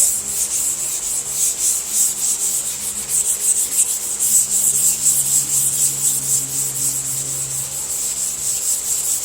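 Scuff pad rubbed by hand over primer on a car body panel in quick, light back-and-forth strokes, a rhythmic scratchy hiss several strokes a second, taking off fine sanding scratches before recoating.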